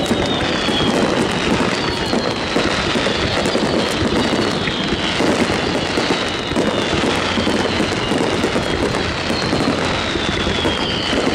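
Aerial firework shells bursting in rapid succession: a dense, continuous rumble of booms and crackle, with high tones falling in pitch every few seconds.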